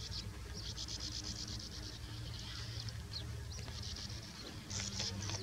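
Sand martins giving dry, buzzy twittering trills around their nest burrows, several birds overlapping in bursts, loudest near the end, over a low steady hum.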